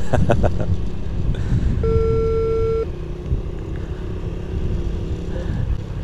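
Low, steady rumble of a car engine, with a few knocks at the start. Near two seconds in comes a single steady beep of about a second: a GoPro signalling that it has started recording.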